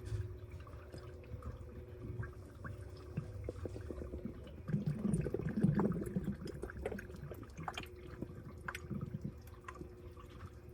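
Washing machine running a wash cycle: water sloshing and dripping in the drum over a steady hum. The sloshing swells for a couple of seconds about five seconds in.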